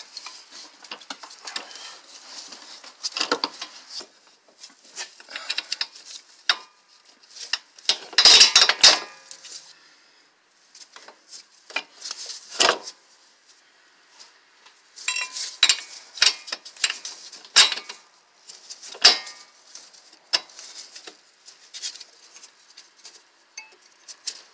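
Irregular metallic clinks, scrapes and rattles of a new CV axle, its fittings and hand tools being handled while the axle is fitted into the wheel hub. They come in bursts with quiet gaps, the loudest a clatter about eight seconds in.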